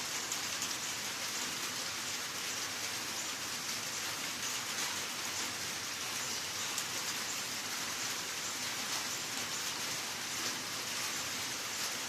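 Steady rain falling, a constant hiss flecked with the fine crackle of many individual drops.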